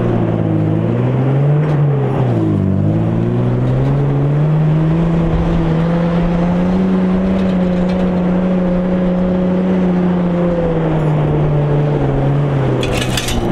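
Vehicle engine driving over sand dunes, revving up and down: its pitch dips about two and a half seconds in, then climbs and holds high before easing off near the end.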